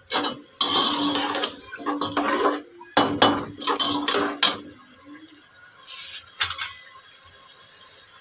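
Perforated steel spoon scraping and clinking against the sides and bottom of an aluminium pot as washed split moong dal is stirred and fried in masala, in a run of strokes over the first four and a half seconds, then two light taps about six seconds in.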